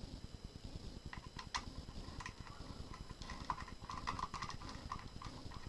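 Small hard clicks and ticks from a monopod's fluid head and its detachable pan handle as they are worked by hand. There is a sharp click about a second and a half in and a quick run of ticks around four seconds in.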